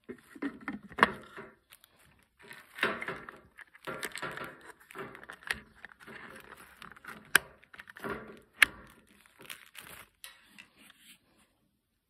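Hard plastic parts of a GoPro underwater dome port and the camera's clear waterproof housing being handled and fitted together: irregular rustling and scraping with several sharp clicks, the loudest about a second in, two more at around seven and a half and eight and a half seconds.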